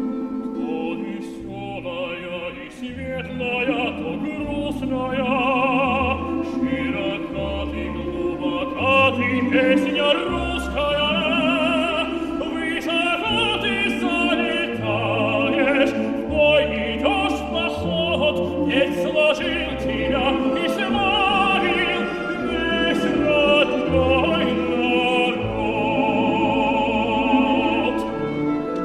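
Classical vocal music: a voice singing with wide vibrato over a Russian folk-instrument orchestra of domras and balalaikas, with a moving bass line and several sharp accents.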